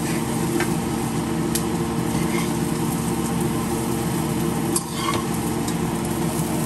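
Sausage, onions and bell pepper strips sizzling in frying pans, with a few light clicks of a spatula against a pan over a steady hum.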